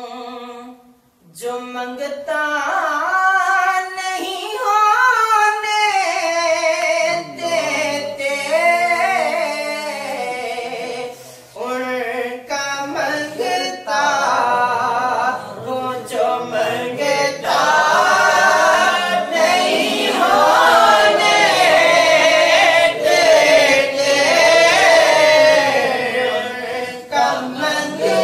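Unaccompanied male naat singing in Punjabi, long wavering melismatic lines held on sustained vowels. It breaks off briefly about a second in, then grows fuller and louder through the second half.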